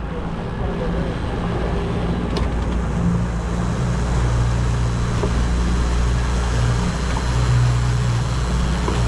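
Boat engine running steadily under way, with wind and water noise washing over it; the engine note shifts slightly about three seconds in.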